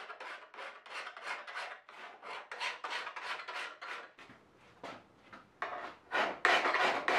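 Hand file rasping across the bevel of a forged steel knife blade in quick, repeated strokes. The strokes are softer at first, pause briefly past the middle, and are louder from about six seconds in.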